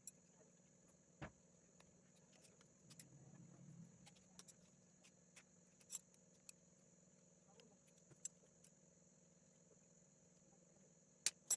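Near silence: faint steady room tone with a handful of scattered faint clicks and taps, about a second in, around six and eight seconds, and twice near the end.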